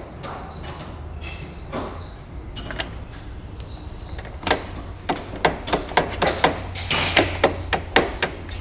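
Metal clicks and clacks from the opened gearbox of a Kawasaki GPZ900 motorcycle engine as the shift barrel is turned with a Phillips screwdriver, moving the shifter forks and gears into fourth gear. The clicks are sparse at first and come about twice a second in the second half, with a brief scrape before them.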